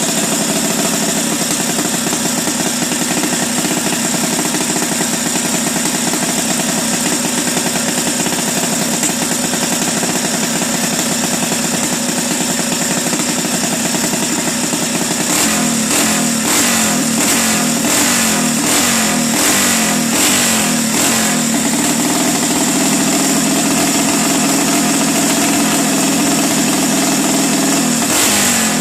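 An engine running loud and steady at idle, then revved in quick repeated blips of the throttle from about halfway through.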